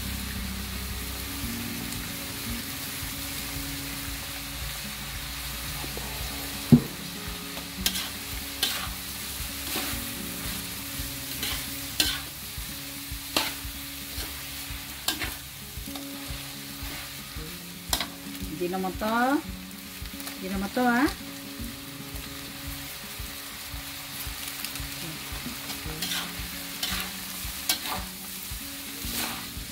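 Fried kueh tiaw rice noodles sizzling in a hot pan as they are stir-fried, the spatula clicking and scraping against the pan now and then. Two short rising squeaks come around two-thirds of the way through.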